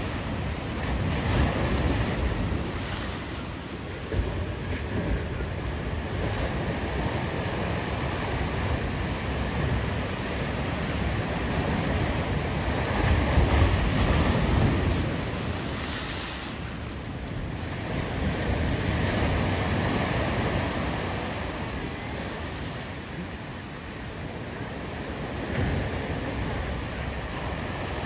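Ocean surf surging and breaking, a steady rushing wash that swells and eases, loudest about halfway through, with wind buffeting the microphone.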